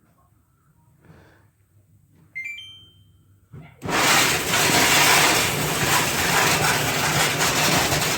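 Samsung clothes dryer's control panel chiming a short run of beeps, then the drum starting up about four seconds in and running with a really loud, steady grinding sound. The grinding comes from a failed drum support roller whose centre bearing race had worked out of the wheel.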